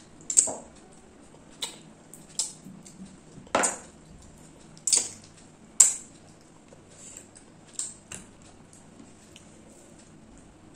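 Close-up sounds of eating chicken curry and rice by hand: about ten irregular wet smacks and clicks of chewing, with fingers squishing rice on the plate.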